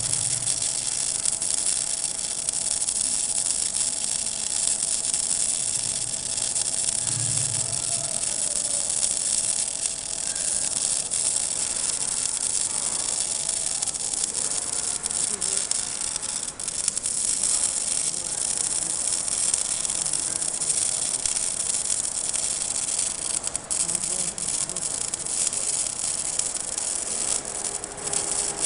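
Electric arc welding on a steel pipe: a steady crackling, sizzling hiss of the arc that runs on without a break.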